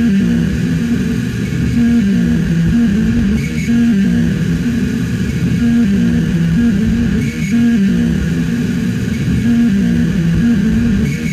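Background music: a low melodic figure over a dense low hum, looping about every four seconds.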